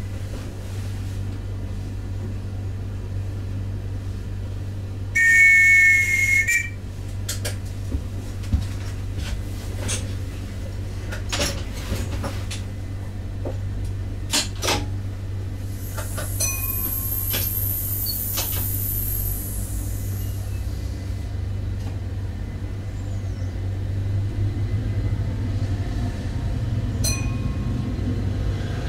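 Cab of a GTW 2/6 diesel-electric multiple unit: steady low engine drone with scattered clicks. About five seconds in, a loud two-tone signal sounds for about a second and a half. A high thin whine rises and falls midway, and the rumble grows louder near the end.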